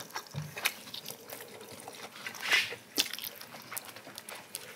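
Close-miked eating sounds: wet chewing and light clicks of chopsticks against bowls, with a short, louder breathy sound about two and a half seconds in.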